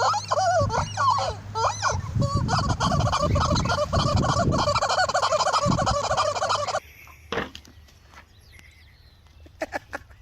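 Turkeys gobbling: a run of rapid, rattling calls that cuts off suddenly about seven seconds in, leaving only a few faint clicks.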